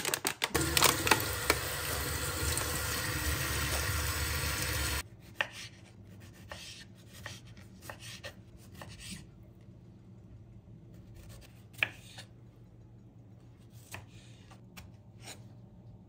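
Tap water running into a plastic punnet of strawberries in a steel sink for about five seconds, then stopping abruptly. After that, a knife slices strawberries on a wooden cutting board, with soft cuts and scattered sharp taps of the blade on the board.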